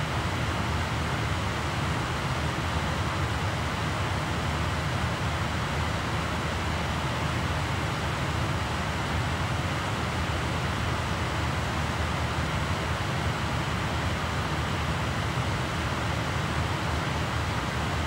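Laptop optical drive spinning a CD at speed while burning it: a steady whir with a strong low hum.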